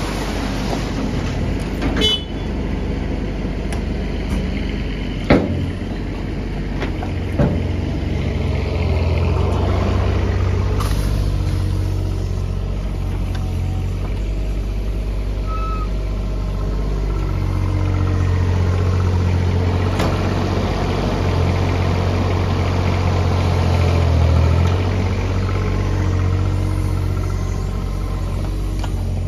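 Diesel engines running steadily: an Iveco tipper truck idling as it tips a load of soil, with a few sharp knocks in the first seconds, then a Doosan DX19 mini excavator's engine working as its bucket lifts and drops soil. The low engine hum grows stronger partway through.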